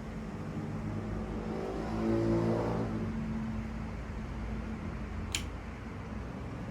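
1970s GEC ceiling fan motor running with a steady hum, spinning in reverse because of a faulty capacitor. The hum swells about two seconds in, and there is a sharp click about five seconds in.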